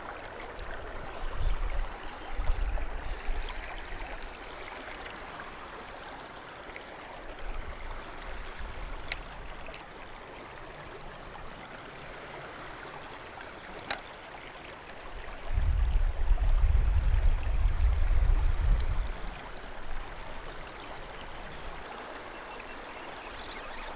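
Steady rush of flowing river water. Low rumbles come twice, briefly about a second in and more strongly from about 15 to 19 seconds, with a few faint clicks in between.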